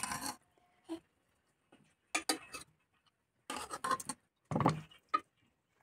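A metal serving spoon clinking and scraping against a bowl as pieces of spinach chicken curry are served into it, in a handful of short bursts with a click near the end.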